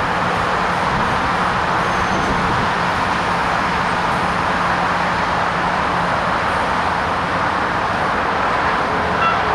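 Comeng electric suburban train pulling out of the station and running away along the track, a steady rolling noise of wheels and motors with a faint low hum that drops away about six seconds in.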